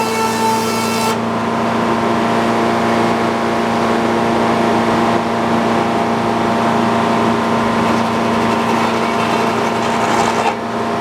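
Sawmill running at high RPM, a steady engine-driven drone with the saw blade spinning. A high hiss cuts off suddenly about a second in and starts again near the end.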